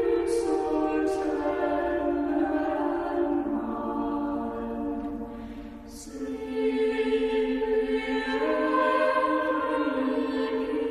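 A choir singing slowly in long, held chords. The voices fade down briefly around the middle, then swell again on a new chord.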